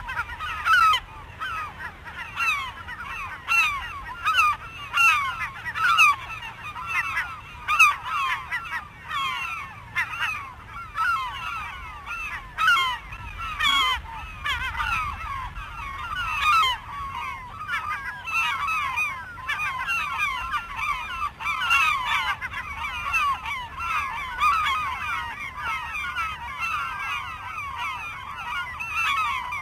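A large flock of birds calling over one another: a dense, unbroken chorus of short calls, many overlapping at once.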